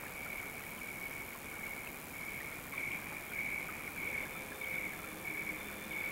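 A faint, high, evenly pulsing tone, just under two pulses a second, becoming clearer after about two seconds, over the steady hiss of an old film soundtrack.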